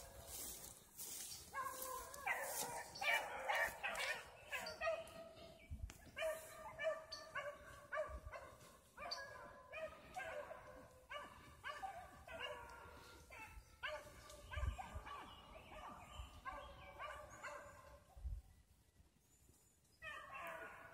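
Dogs barking over and over, several voices overlapping at times. They fall quiet for a couple of seconds near the end, then give one more bark.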